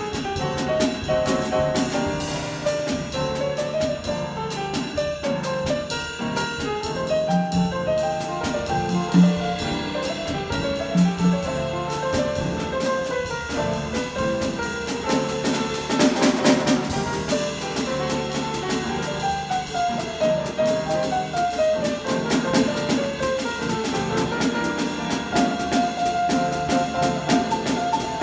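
Jazz trio of vibraphone, grand piano and drum kit playing an arranged tune, the vibraphone and piano carrying a stepping melody over brushed-along drums, with a cymbal swell about halfway through.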